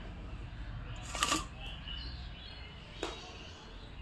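Quiet handling of wet fish in a stainless-steel bowl: one brief scrape-and-rustle about a second in, and a small click near the end.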